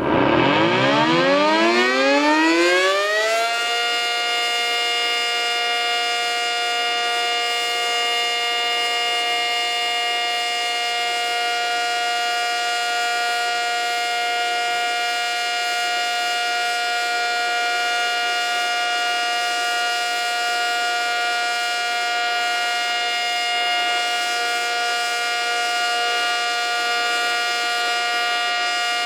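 ACA Cyclone 125 outdoor warning siren being tested. It winds up, its pitch gliding up from low over about three and a half seconds, then holds a loud, steady multi-tone wail at full speed.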